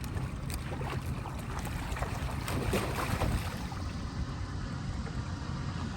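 Steady low rumble of a boat's motor running, with wind on the microphone.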